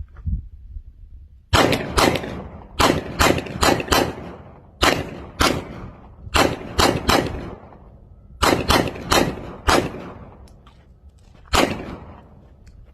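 Gunshots fired in quick strings of three to five shots, about twenty shots in all, with one last single shot near the end. Each crack leaves a short ringing tail.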